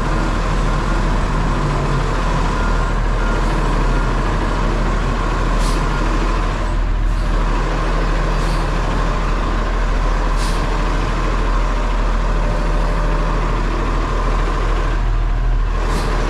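Cement mixer truck's diesel engine running steadily as the truck creeps forward into the loading position, heard from inside the cab. A few short air hisses cut in over it.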